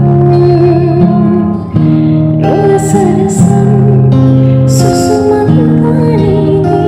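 Background music: a slow song with a voice singing a wavering melody over guitar and held chords that change every second or so.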